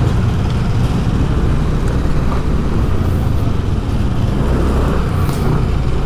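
Steady road traffic noise, a continuous low rumble of vehicles.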